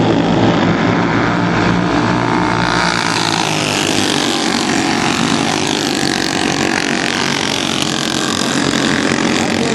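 Racing engines of several cars running at speed in a race, a loud continuous mix of engine noise.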